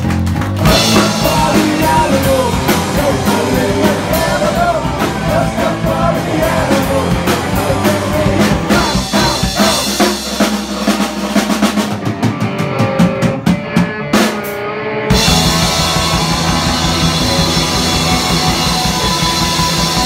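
Live punk rock band playing loudly: distorted electric guitars, bass and a drum kit. About twelve seconds in, the band thins to mostly drums for about three seconds, then the full band comes back in.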